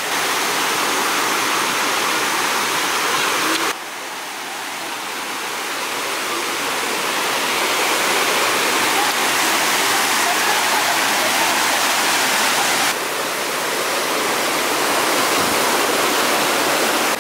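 Loud, steady rush of water from a rocky mountain stream pouring over boulders, dropping suddenly in level about four seconds in and again about thirteen seconds in.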